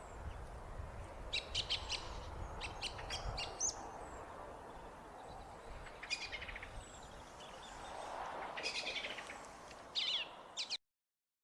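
Song thrush singing: short phrases of quick, sharp notes repeated several times, with pauses between phrases, over a faint low background rumble. The sound cuts off abruptly near the end.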